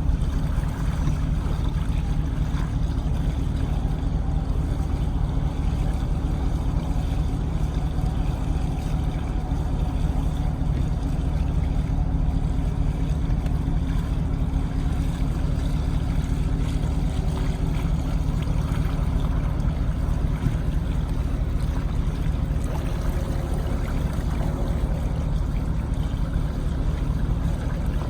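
Vehicle engine idling steadily, with the even wash of running water and rain over it.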